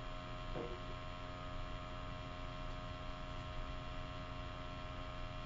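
Steady electrical mains hum with several steady tones over a low room noise, and a faint brief sound about half a second in.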